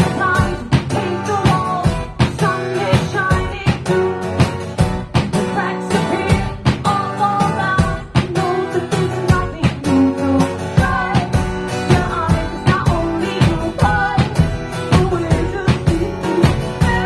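Live band music: strummed guitar over a steady drum beat, with a voice singing.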